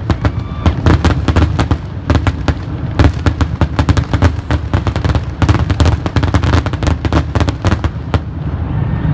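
Closing barrage of a fireworks display: a dense, rapid run of booms and crackling reports, several a second, over a low rumble. The reports thin out and stop shortly before the end.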